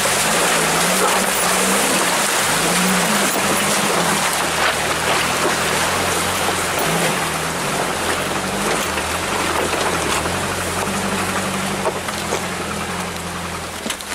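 Off-road vehicle engine running at low revs, its hum wavering in pitch, under a loud steady rushing noise.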